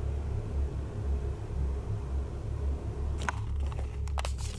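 A steady low hum, with several sharp clicks and rustles of a handheld camera being moved starting about three seconds in.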